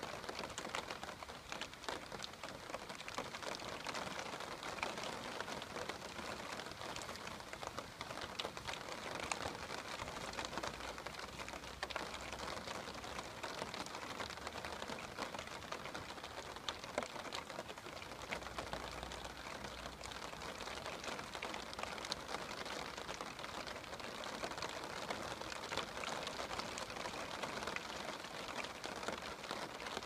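Steady rain falling: an even hiss made of many small drop ticks, with no change throughout.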